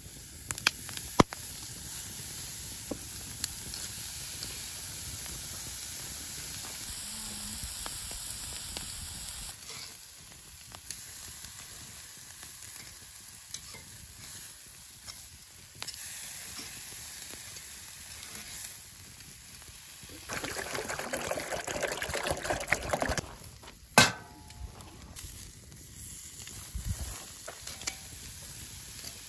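Steaks sizzling as they are laid with tongs on a hot steel grill grate over campfire coals, a steady hiss that swells louder and crackles for a few seconds about two-thirds of the way through. A few sharp clicks cut in, the loudest one near the end.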